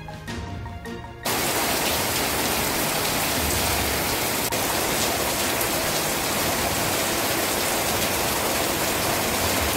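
Heavy rain pouring down in a steady, even hiss that cuts in suddenly about a second in, after a short stretch of background music.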